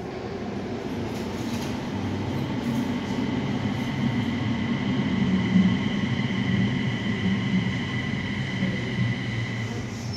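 Busan Subway Line 4 rubber-tyred light-metro train running into the station: a rumble that builds to its loudest about halfway through, with a steady high whine over it.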